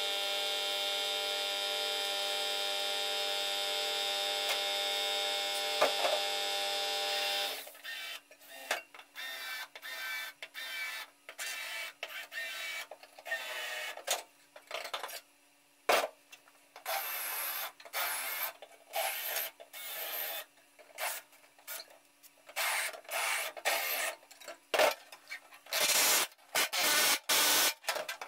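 A steady hum with many even tones for the first seven seconds or so. Then a pneumatic air hammer with a chisel bit cuts through sheet metal in many short bursts, starting and stopping.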